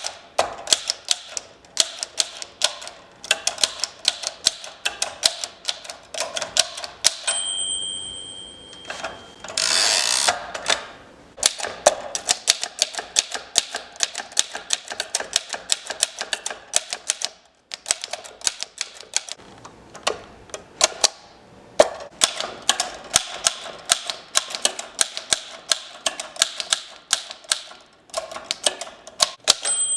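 1915 French Typo manual typewriter being typed on: quick runs of sharp key strikes. A bell rings about seven seconds in, then the carriage is pushed back with a short sliding rush. Typing resumes and the bell rings again near the end.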